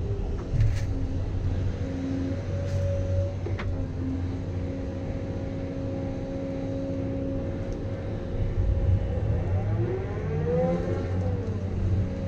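Diesel engine of a heavy earthmoving machine running under load as it moves dirt, a steady low rumble with held engine tones. About ten seconds in, a whine rises and falls as the engine and hydraulics work harder.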